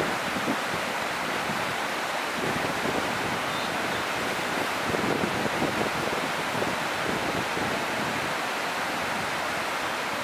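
Whitewater rapids rushing, a steady even noise of churning water.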